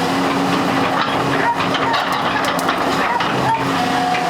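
Hitachi EX200-2 hydraulic excavator's diesel engine running steadily, with brief high whining tones coming and going over it.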